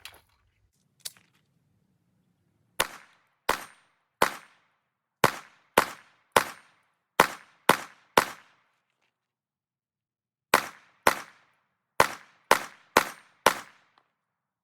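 Fifteen 9mm pistol shots from a slimline Glock, a full 15-round magazine fired in two strings. The first string is nine shots roughly half a second to a second apart, and after a pause of about two seconds comes a quicker string of six. Two faint clicks come before the first shot.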